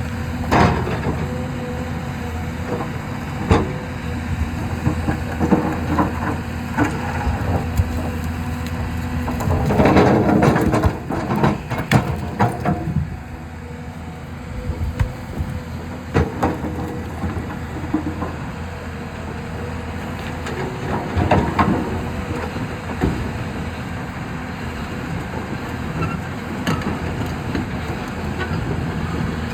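Hyundai R215L Smart Plus excavator's diesel engine running steadily, with sharp knocks and clanks scattered throughout and a louder, busier stretch of them about ten seconds in.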